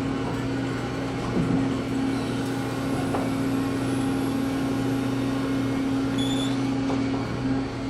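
A large engine-driven machine running steadily, with a constant low hum.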